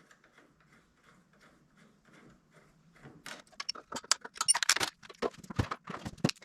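Hand tools clicking and clinking against metal parts while the starter generator is being unbolted. There are faint light ticks at first, then a busy run of sharp metallic clicks and clanks from about three seconds in.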